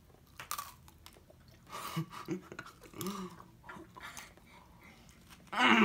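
Wet mouth sounds and short muffled hums from a person with a mouth stuffed full of Warheads sour candies, saliva running from his lips. A louder muffled vocal sound comes near the end.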